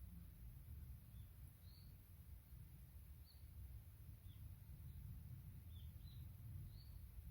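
Faint, short, high bird chirps, about seven scattered across several seconds, over a low, steady wind rumble in a mountain forest.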